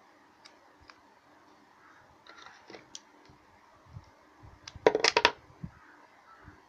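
Black electrical tape being cut with scissors and handled: a few light clicks and rustles, then a short burst of rapid, sharp crackles about five seconds in as the tape is snipped and pulled free.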